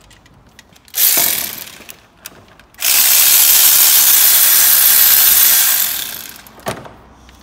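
Cordless power driver running, spinning out a camshaft sprocket bolt on the exposed timing end of the engine: a short burst about a second in, then a longer run of about three seconds that dies away near the six-second mark.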